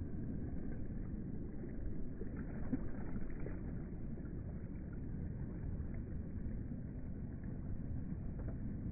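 Small sea waves sloshing against a phone held at the water's surface: a low, steady rumble with a few faint splashy ticks.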